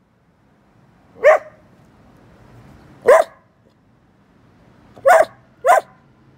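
Bedlington whippet lurcher barking four times: two single barks about two seconds apart, then a quick pair near the end.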